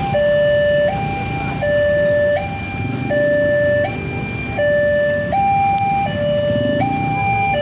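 Railway level-crossing warning alarm sounding from the horn loudspeaker on the crossing signal: an electronic two-tone alarm switching between a higher and a lower tone about every three-quarters of a second, the sign that the barrier is down for an approaching train. A low rumble of road traffic runs underneath.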